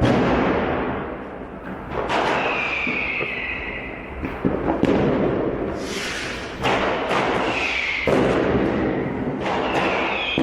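Street fireworks going off: about six sharp bangs of firecrackers and rockets, a second or two apart, each trailing off, with whistling fireworks giving high whistles that fall slightly in pitch, three times.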